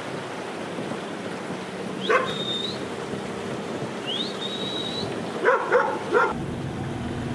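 A dog barks once, then three quick barks near the end, over a steady low background hum. Between them come two high thin whistles, each rising and then held.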